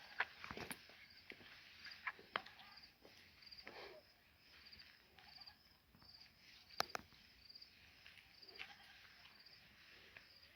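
Faint insect chirping, likely a cricket, a short high chirp repeated about twice a second, with a few sharp clicks and soft footsteps in between.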